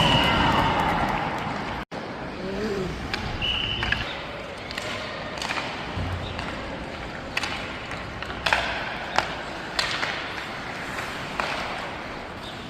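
Ice hockey rink sounds during a youth game: sharp clacks and knocks of sticks, puck and boards come scattered through, over a steady hum of the rink. Voices are heard at the start, and a short high tone sounds about three and a half seconds in.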